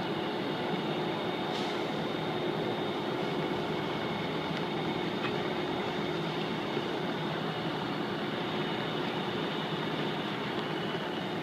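Fire truck's engine running steadily, a constant mechanical drone with a steady hum under it.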